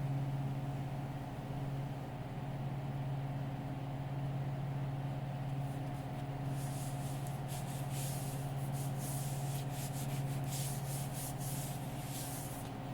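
FoxAlien 4040-XE desktop CNC router running: the spindle motor gives a steady hum throughout. From about six seconds in, the 1/8-inch end mill cutting into the board adds an uneven hissing, scraping cutting noise.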